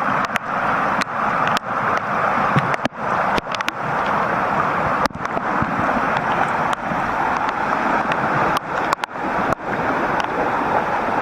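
Rain-swollen creek in flood, fast-moving water rushing with a loud, steady wash.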